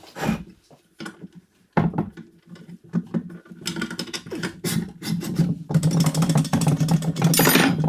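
Parts of a Ryobi 10-inch drill press being handled and fitted during assembly: scattered clicks and knocks, then from about halfway a fast, continuous mechanical rattling and clicking that lasts a few seconds and stops near the end.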